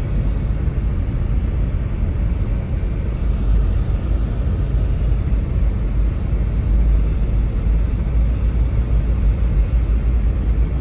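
Loud, steady low rumbling noise that starts and cuts off abruptly.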